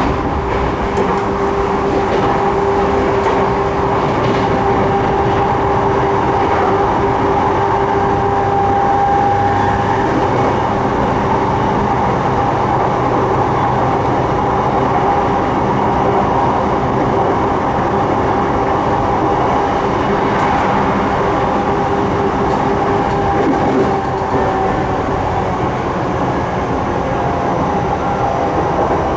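Sotetsu 12000 series electric train running: a continuous rumble of wheels on rail with a steady hum of two held tones from the drive equipment, and a few light clicks. The tones ease off slightly near the end.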